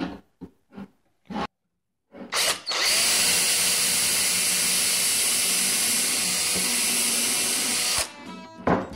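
A few light clicks, then a DeWalt cordless drill spins up and bores a pilot hole into the end grain of a pine board, running steadily for about five seconds before stopping abruptly. Guitar music comes in near the end.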